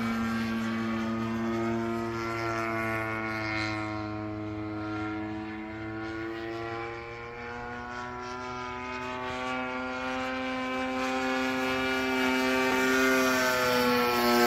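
Factor 3D radio-controlled model airplane flying overhead, its engine and propeller running with a steady buzzing note. The pitch and loudness sag near the middle, then climb and grow louder toward the end as the plane comes back. The engine is running well.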